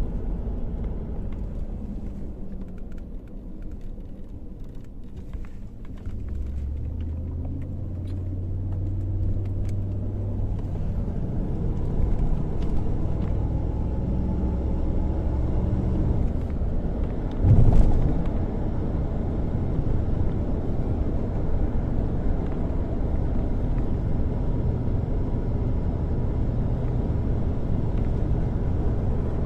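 Low, steady engine rumble of a moving vehicle heard from on board, growing stronger about six seconds in, with one loud thump about eighteen seconds in.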